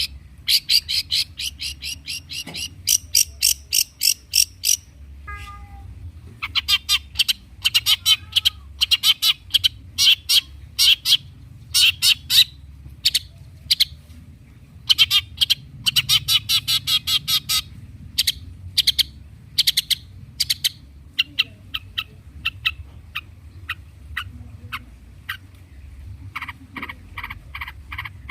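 Long-tailed shrike (cendet) singing a mimicry-filled song: rapid trains of sharp, high chattering notes, each run lasting a second or two with short breaks between. Near the end it switches to a lower, faster pulsing call.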